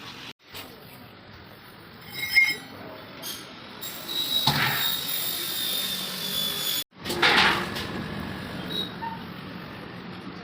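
Metal tools and parts clinking on a workbench, with one ringing clink about two seconds in, then a few seconds of hiss with a faint high whine that cuts off suddenly.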